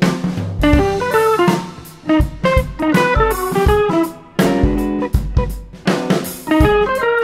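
Background music: a guitar playing a melodic line over a drum kit beat.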